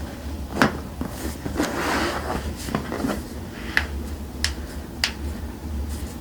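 Joints cracking under a chiropractic manual adjustment: one loud pop about half a second in, then three sharper cracks about half a second apart near the end, with a rustle of movement in between.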